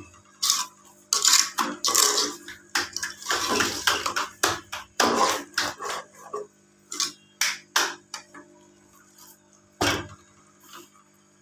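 Perforated metal spoon scraping and clattering against a metal pot as cracked wheat and sugar are stirred, in irregular strokes that thin out after about eight seconds, with one sharp knock near the end.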